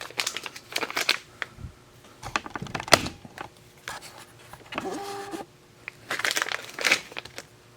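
Irregular clicking and clattering of small Singer top hat cams being picked up, turned over and set down by hand, with a short rustle about six seconds in.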